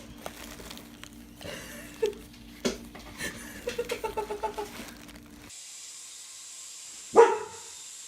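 A dog barking once, loudly, near the end, after a room with a low hum, scattered knocks and a quick run of short high yelps.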